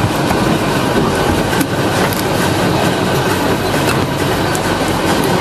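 Factory machinery running with a loud, steady mechanical clatter and many small clicks and rattles.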